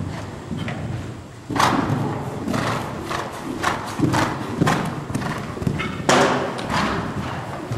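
A horse cantering on soft sand arena footing, its hoofbeats landing as dull thuds. About six seconds in there is a louder thud as it lands over a jump.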